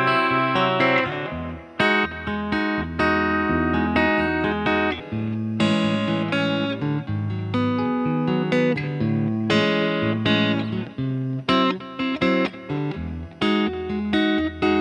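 Home-built Telecaster Thinline electric guitar played clean through a Fender Tweed Deluxe 5E3 kit amp and a Laney Lionheart L5, with a Blues Driver as clean boost and light delay: a continuous passage of plucked single notes and chords, each ringing on.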